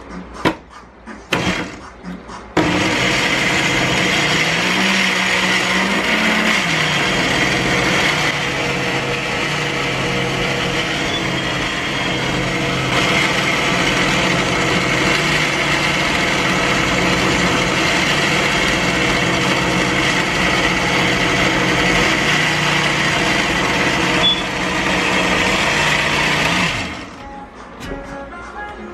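Black+Decker countertop blender with a glass jar running steadily for about 24 seconds, puréeing raw green peppers; its motor pitch rises for a couple of seconds soon after it starts and dips again just before it shuts off. A few sharp knocks come before it starts, and it cuts off suddenly near the end.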